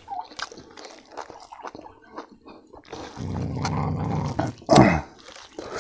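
Close-miked eating sounds: wet chewing and lip smacks while eating with the fingers, then a low drawn-out hum of about a second and a half from about three seconds in, and a short falling vocal sound near the end.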